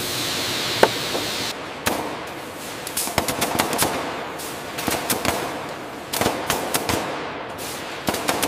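Pneumatic rivet gun hammering rivets into aluminium aircraft skin: short, rapid bursts of sharp strikes, starting about two seconds in. A steady noise fills the first second or so.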